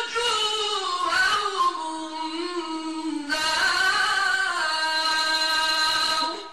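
A man reciting the Quran in melodic tajwid style into a microphone, drawing out two long phrases with the voice sliding slowly between notes. The voice stops shortly before the end.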